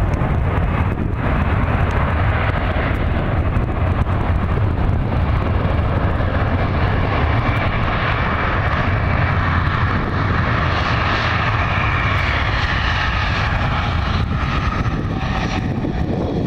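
Airbus A319-112's CFM56 jet engines running in reverse thrust as the airliner rolls out on the runway after touchdown: a steady heavy rumble, with an engine whine that grows in the middle and fades near the end.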